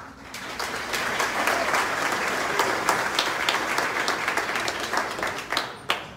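Audience applauding. The clapping swells within the first second, holds, then dies away with a few last separate claps near the end.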